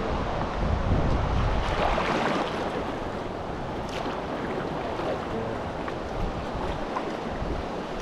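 River water rushing and splashing around a raft, with wind buffeting the microphone that is heaviest in the first couple of seconds.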